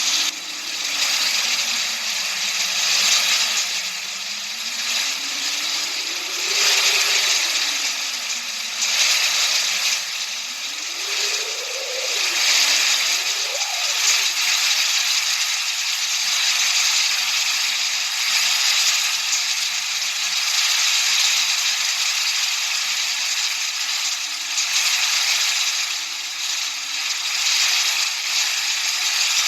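Continuous hissing noise that swells and fades every few seconds. Beneath it a faint low tone slowly rises and falls in pitch, in waves of a few seconds.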